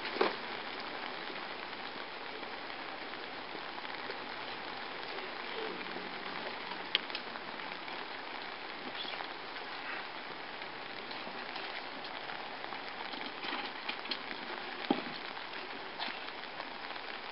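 Steady rain, an even hiss, with a few scattered sharp taps.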